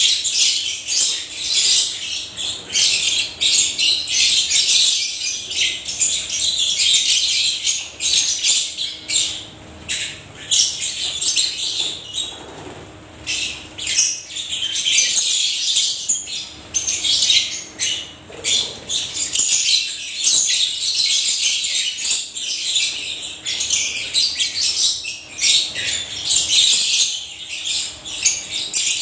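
Many African lovebirds chattering and chirping together in a continuous shrill din, easing briefly about twelve seconds in.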